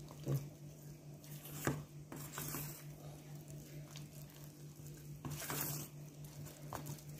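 A hand squishing and mixing thick flour-and-egg batter in a stainless steel bowl, with soft wet squelching and a few light clicks against the bowl. A steady low hum runs underneath.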